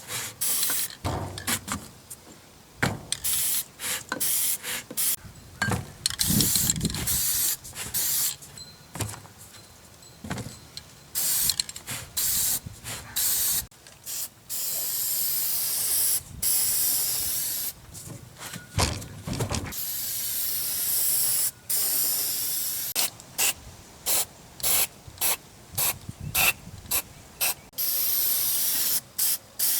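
Aerosol can of dry graphite lubricant spraying in repeated hissing bursts, some short and a few held for two to three seconds, with knocks and rattles from the metal feed-roll parts being handled between sprays.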